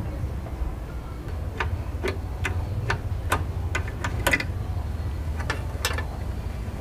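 About a dozen sharp, irregular metallic clicks and taps as a Denso horn and its mounting bolt are handled and worked with a wrench on a car's radiator support, over a steady low rumble.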